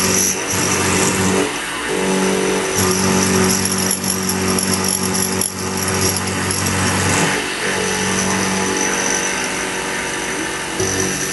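X2 mini milling machine running, its end mill cutting into metal. The cutting noise comes and goes in stretches of a few seconds as the cut is fed along.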